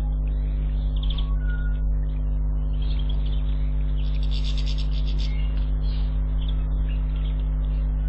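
Steady electrical hum, with faint small birds chirping over it on and off and a brief louder, higher flurry about four seconds in.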